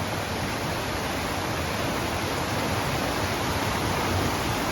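Small waterfalls cascading down a mountainside, a steady rush of falling water.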